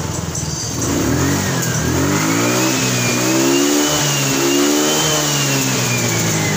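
Suzuki Spin scooter's single-cylinder engine revved up and down on the throttle. The revs climb about a second in, then rise and fall twice, with a thin whine that rises and falls along with them.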